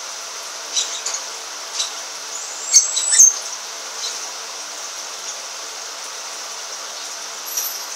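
Lovebird chick chirping: short, high-pitched chirps, a few scattered ones and a quick cluster about three seconds in, over a steady background hiss.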